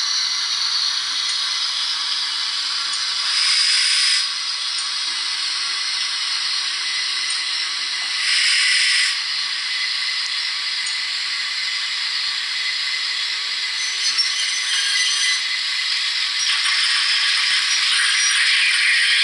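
Zimo digital sound decoder playing a GWR 28xx 2-8-0 steam locomotive sound through the model's small 28 mm tender speaker as the model runs: a steady mix of steam hiss and mechanical rattle, thin and with no bass, with two louder bursts of hiss about three and eight seconds in. The sound grows louder near the end.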